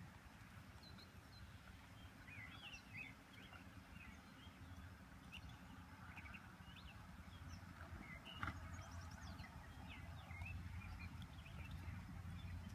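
Faint birds chirping in short scattered notes over a low steady background rumble, with one brief click about two-thirds of the way through.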